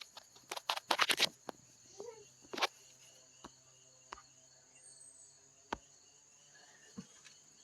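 Sharp clicks and taps of a wrench and screwdriver working the valve adjuster lock nut on the engine's cylinder head: a quick run of clicks about a second in, then single taps every second or so. A faint steady high hiss runs underneath.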